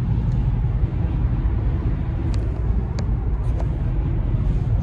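Steady low road and engine rumble inside a Kia car's cabin while cruising at highway speed, with a few light clicks between about two and three and a half seconds in.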